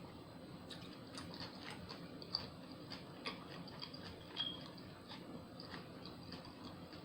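Close-miked chewing of a sub sandwich: small wet mouth clicks and smacks at irregular intervals, the sharpest a little over two seconds in.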